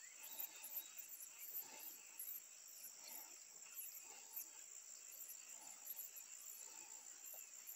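Faint insects chirping: short, very high chirps repeating about three times a second over a steady high-pitched hum.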